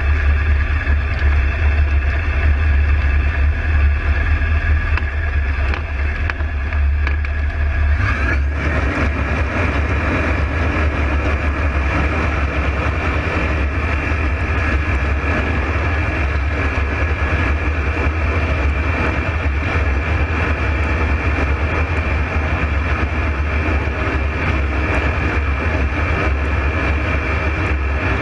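Ultralight aircraft engine running loud and steady with rushing air, heard from inside the open cockpit during the takeoff roll and climb; the sound grows fuller about eight seconds in.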